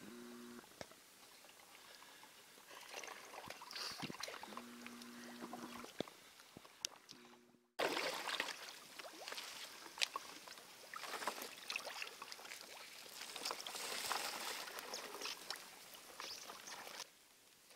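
Rubber boots wading through shallow, partly frozen pond water: irregular sloshing and splashing, with sharp clicks and cracks of thin ice breaking. The sound cuts out for an instant about eight seconds in and comes back louder.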